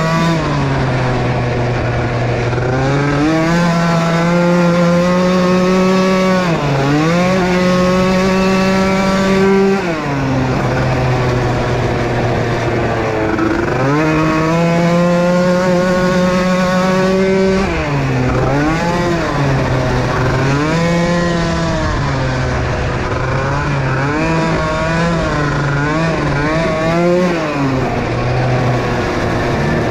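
Small youth racing ATV engines running hard on a motocross track, the pitch climbing and dropping back again and again as the rider goes on and off the throttle.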